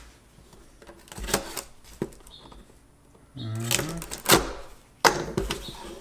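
A utility knife slicing the packing tape on a cardboard box, with scattered clicks, scrapes and rustling of the cardboard as the box is worked open; a sharp click about four seconds in is the loudest sound.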